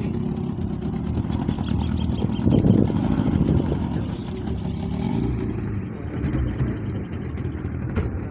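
Motor of a small river launch running steadily while the boat is underway, with a brief louder surge about two and a half seconds in.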